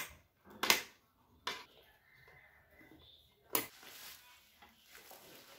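Office chair parts being handled: several sharp knocks of the plastic and metal seat assembly against each other and the floor, then a brief rustle as the seat is turned over on bubble wrap.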